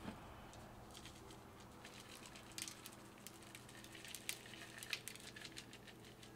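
Dry barbecue rub being sprinkled over a beef roast: faint, irregular light ticks of granules falling onto the meat and an aluminum sheet pan, with a few sharper ticks.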